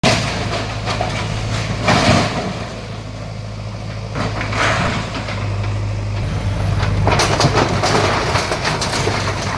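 Bulldozer's diesel engine running with a steady low drone while it demolishes shop structures, with louder noisy stretches about two seconds in and again near the end.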